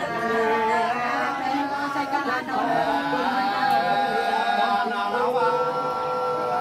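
Women singing a hát sli folk song unaccompanied, in long held notes that slide slowly from one pitch to the next.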